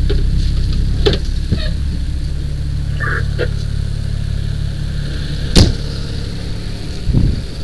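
Fire engine's engine running with a steady low rumble, with knocks and clatter of gear as the wearer climbs out of the crew cab and walks off. A single sharp bang about five and a half seconds in is the loudest sound.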